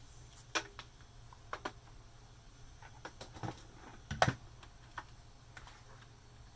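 Light clicks and knocks of hard objects being handled on a desk, irregular and a dozen or so in all, with one louder thump about four seconds in.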